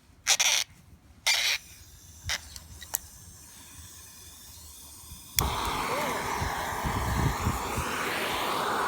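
Handheld gas torch burner being tried: two short bursts of hiss and a few sharp clicks, then about five seconds in it lights with a click and runs with a steady, loud hiss of burning gas.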